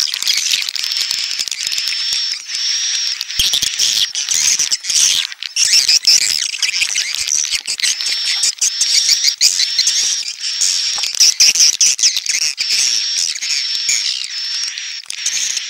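Swiftlet call recording (the AUDAX 6000 swiftlet lure sound): a dense, continuous chatter of high chirps and twitters with a thin high tone repeating about once a second, played to draw edible-nest swiftlets into a bird house.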